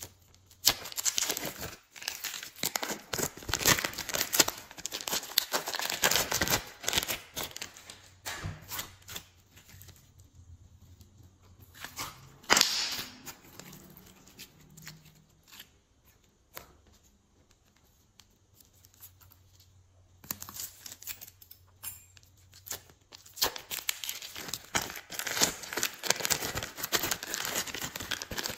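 Hands squishing, stretching and folding glossy glitter slime, giving dense sticky crackling clicks as it is pressed and pulled apart. In the middle there is a quieter spell, broken by one sharp snap.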